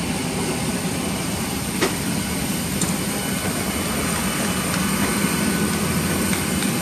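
Steady rumble and thin high whine of a parked Boeing 737-700 on the apron, its auxiliary power running, with a single sharp click about two seconds in.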